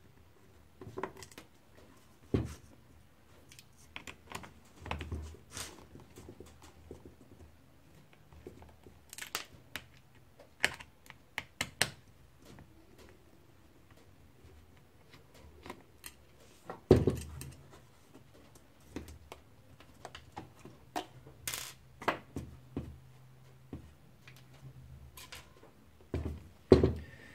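Irregular clicks, taps and knocks of plastic and metal parts as a Lexmark MS510-series drum unit is handled and taken apart on a desk, with the loudest knocks about two seconds in and about seventeen seconds in.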